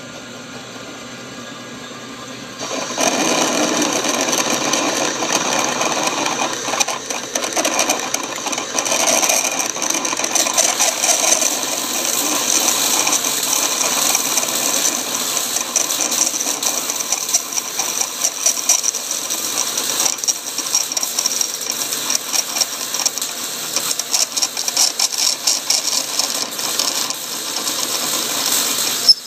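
Lathe drilling a steel workpiece with a large twist drill: the machine turns quietly for the first few seconds, then the drill bites about three seconds in and a loud, uneven cutting noise with a high-pitched hiss takes over as the chips curl off.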